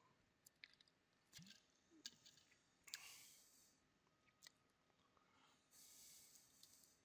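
Near silence: room tone with a few faint scattered clicks and brief soft hissy noises near the microphone.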